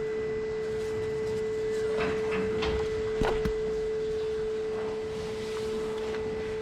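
A steady hum held at one pitch, with a few faint knocks and rattles about two to three and a half seconds in.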